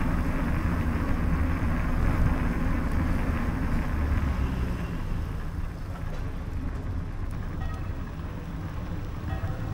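Steady low rumble of riding a bicycle along paved streets, growing quieter about halfway through.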